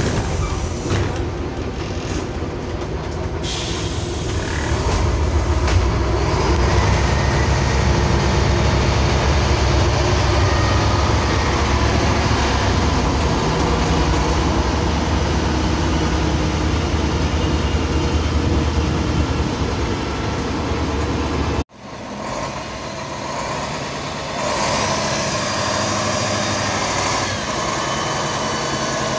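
Inside a LiAZ 5256.45 city bus on the move: the diesel engine drone and cabin rattle grow louder a few seconds in and hold steady. About two-thirds of the way through the sound cuts abruptly to the bus heard from outside, its diesel engine idling.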